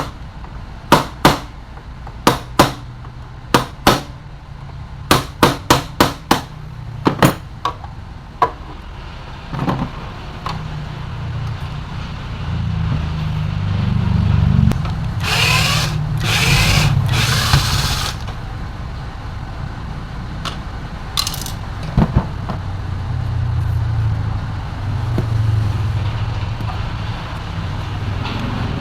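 Sharp knocks and taps of tools on a mixer grinder's parts during disassembly, about a dozen in the first eight seconds. Then a steady low hum with a louder rasping stretch around the middle.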